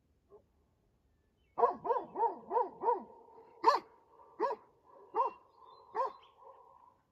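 Livestock guardian dog barking: a quick run of about five barks, then four single barks roughly a second apart. The dog is barking to warn off coyotes.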